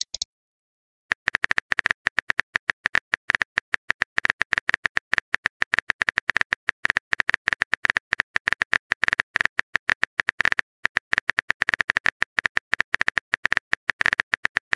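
Phone keyboard typing sound effect: a quick, irregular run of clicks, one per keystroke, starting about a second in as a text message is typed.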